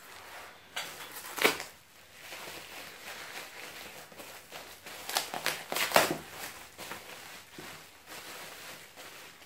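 Plastic bubble wrap crinkling and crackling as it is pulled open by hand to unwrap a ceramic bonsai pot, with the loudest crackles about a second and a half in and again around six seconds.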